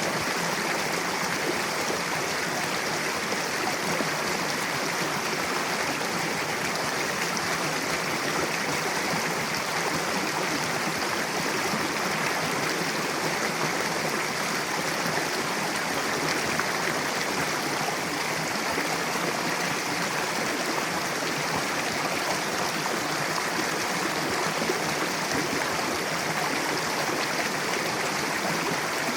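Mountain river rushing over rocks, a steady even rush of water.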